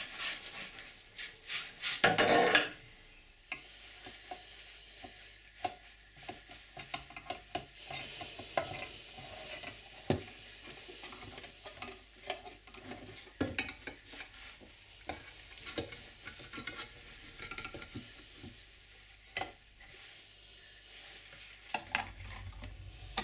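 Metal varnish tins and their lids clinking, tapping and scraping on a workbench, with varnish being stirred, in a string of small irregular knocks. A louder knock comes about two seconds in.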